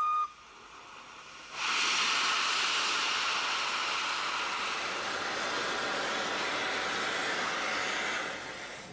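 A brief whistle note right at the start. Then, about one and a half seconds in, an HGS-class 2-8-0 steam locomotive blows steam with a loud, steady hiss, likely its cylinder drain cocks venting, which lasts about seven seconds and fades near the end.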